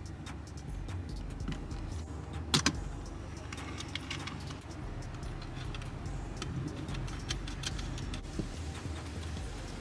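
Plastic clicks and rattles as a phone in its case is handled and fitted into a suction-cup windshield phone mount, with one sharp click about two and a half seconds in, over a steady low rumble.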